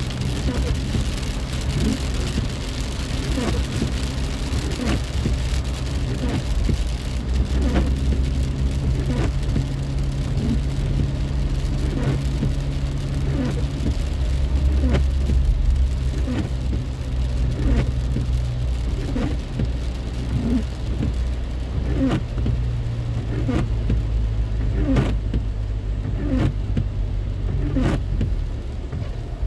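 Steady low road and engine rumble inside a moving car's cabin on a wet road, with irregular sharp taps of rain striking the car about once a second.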